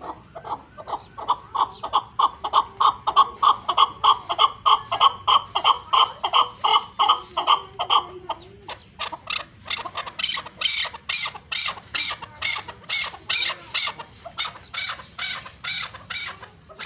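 Chukar partridge calling: a rapid, rhythmic run of short chuck notes, about four a second, that turn higher-pitched about halfway through.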